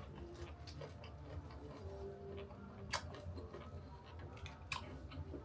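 Quiet eating sounds: scattered soft ticks and clicks, with two sharper clicks about three seconds in and near the end.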